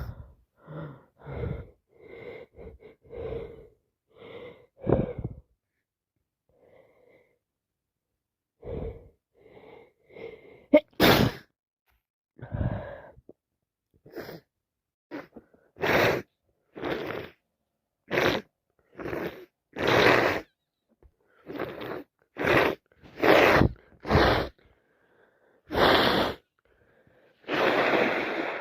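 A woman with a cold sneezing over and over. Short, quieter gasps come in the first few seconds, then about a dozen loud sneezes follow in quick succession from about eleven seconds in.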